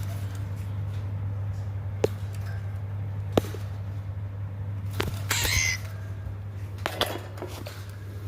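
A pet bird striking the camera in a few sharp knocks, the two loudest about two and three and a half seconds in, and letting out a short, harsh hiss a little after five seconds. A steady low hum runs underneath.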